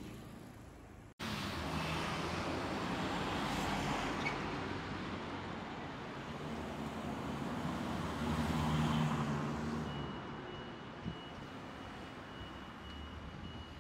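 Road traffic: vehicles passing on a city street, the noise swelling and fading twice, after a brief dropout about a second in.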